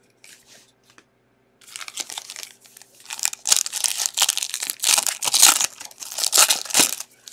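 A shiny foil wrapper on a 2021 Bowman baseball card pack being torn open and crinkled by hand. It starts about a second and a half in and grows louder, then stops just before the end.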